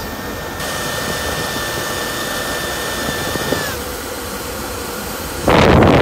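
Steady rush of air from a 7000 BTU 12-volt DC air conditioner's blower, with a faint high whine that stops a little after halfway. Near the end the air noise jumps much louder and rougher for about a second and a half as the airflow blows straight onto the microphone at the duct opening.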